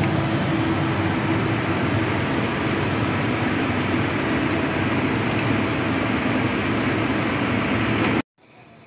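Portable on-site machining rig turning a cement-crusher shaft: its electric gear motor and chain drive run steadily, a high whine over a noisy rumble, and the sound cuts off abruptly near the end.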